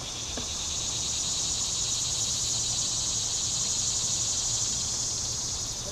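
A chorus of insects buzzing in a steady high drone with a fine, rapid pulse, swelling in the first second and easing off near the end.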